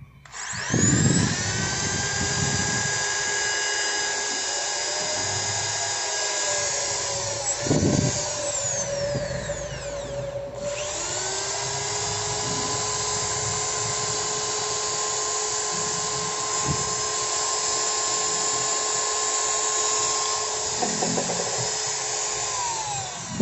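Ryota RA-2010VR 10 mm electric drill's brushed motor running free, on test with a substituted Makita 6412 armature and new carbon brushes. It starts about half a second in and runs at a steady pitch, drops out briefly about ten seconds in and picks up again, then winds down just before the end.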